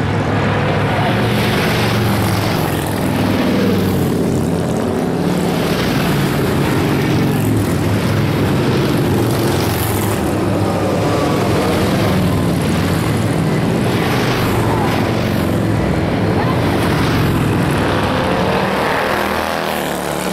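A stream of motorcycles riding past one after another, their engines overlapping in a continuous drone, with pitch sliding up and down as individual bikes come by.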